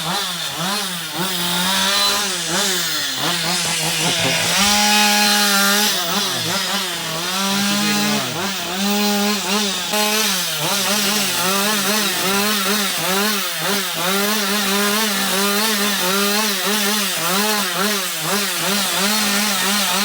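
Gasoline chainsaw carving into a log, its engine revving up and down over and over as the bar bites and eases off, the pitch rising and falling about once a second.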